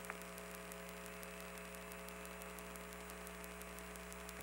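Steady hum and hiss of the Apollo air-to-ground radio channel with no one transmitting, with faint, evenly spaced ticking under it.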